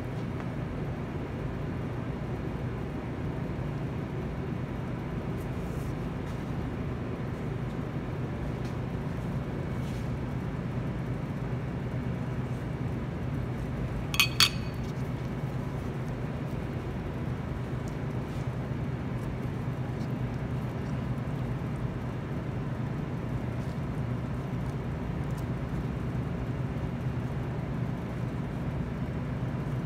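Steady low hum with faint handling clicks while a burger is put together by hand, and a sharp ringing double clink of a utensil against dishware about 14 seconds in.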